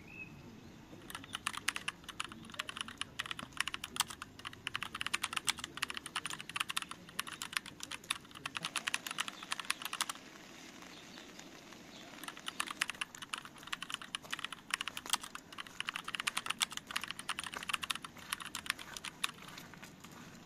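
Keyboard typing sound effect, a fast patter of key clicks, for text appearing letter by letter. It comes in two runs: one from about a second in to about ten seconds, and a second from about twelve seconds in until shortly before the end.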